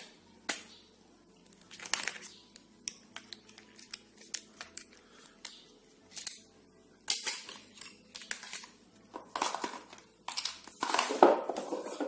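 Plastic handling noise from a small phone as its snap-on back cover is pried off and a SIM card is pulled out: a string of sharp clicks and scrapes, with louder rubbing near the end.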